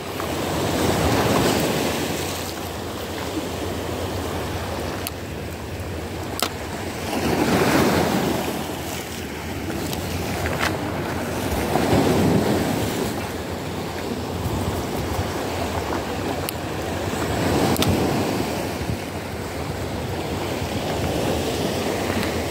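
Sea waves breaking against the shore, surging up every four to six seconds over a steady wash, with wind buffeting the microphone.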